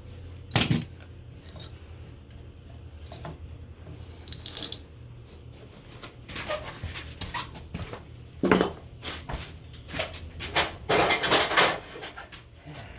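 Metal engine parts and tools being handled during a top-end rebuild on an ATV engine: scattered clinks and knocks, with a loud one about half a second in, another about eight and a half seconds in, and a cluster of clatter a few seconds before the end.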